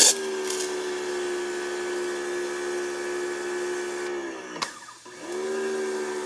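Electric pressure washer's motor and pump running with the spray gun trigger squeezed: a steady hum over the hiss of the water jet. About four seconds in the motor winds down and stops, then starts up again near the end.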